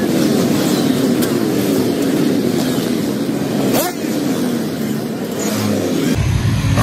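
Enduro motocross bikes riding past one after another, their engines revving and accelerating, the pitch rising and falling as each goes by; one bike revs sharply up a little before four seconds in.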